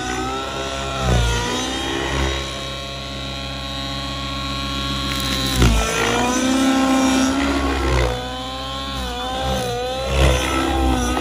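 Nitro-fuelled RC helicopter's glow engine and rotor in aerobatic flight. The engine note swings up and down, holds a steady high pitch for a few seconds, then dips sharply about halfway through and climbs again. A few low thumps are heard, the loudest at that dip.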